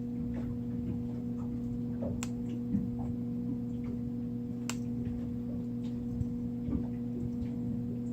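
Small scattered clicks and ticks of wire, hook and swivel being handled as a wire fishing leader is tied, with two sharper clicks about two and five seconds in, over a steady low hum.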